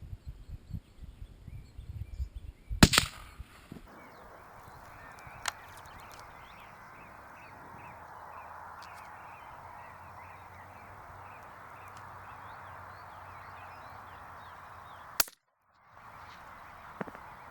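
A single sharp shot from a sound-moderated rimfire rifle about three seconds in, with a short ringing tail, then steady outdoor background with faint bird chirps.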